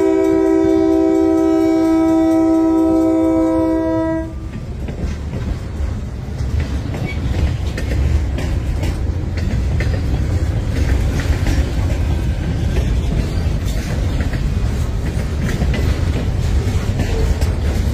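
Multi-note air horn on a caboose at the head of a reversing freight train, several tones sounding together as a chord for the grade crossing, cutting off about four seconds in. Then the freight cars roll past over the crossing with a steady rumble and the clickety-clack of wheels over rail joints.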